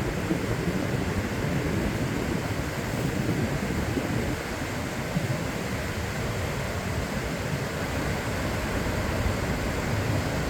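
Sea waves breaking and washing on a beach in a steady, continuous surf noise, strongest in the low range, with no single wave standing out.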